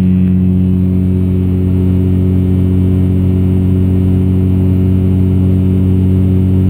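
Dodge Ram's 5.9 L Cummins common-rail diesel engine running steadily under load at road speed, heard inside the cab as a low, even drone.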